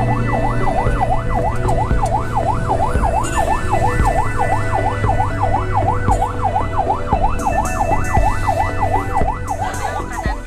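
Ambulance electronic siren in fast yelp mode, heard from inside the vehicle's cabin: a rapid, even rise and fall of pitch about three times a second over the low steady drone of the moving vehicle. The siren stops near the end.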